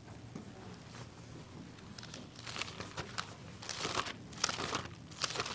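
Bible pages being leafed through at the lectern microphone, a run of short papery rustles starting about two seconds in and growing louder as he searches for the passage.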